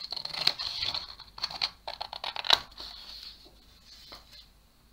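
Scissors cutting through a sheet of thin card: a run of snips and crackles of paper, the loudest snip about two and a half seconds in, then only faint handling.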